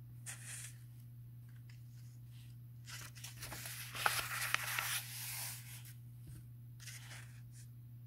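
A paperback book's paper page being turned and smoothed flat by hand: a rustle about three seconds in lasting some two seconds, with shorter paper rustles near the start and near the end.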